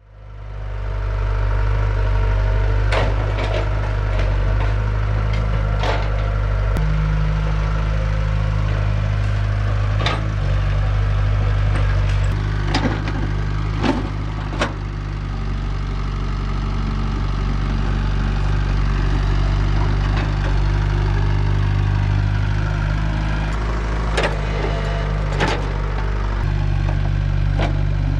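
Kobelco Yutani hydraulic excavator's diesel engine running steadily under load. Sharp knocks and cracks come as the bucket digs through soil and roots, in clusters near the start, in the middle and near the end. The sound fades in over the first second.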